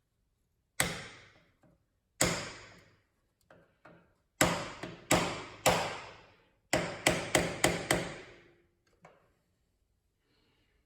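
A hammer striking a pointed tool into the bottom of a motorcycle's spin-on oil filter, punching a hole so the oil drains out. About a dozen sharp blows, each with a short ringing decay: spaced at first, then five quick blows in a row about two-thirds of the way through.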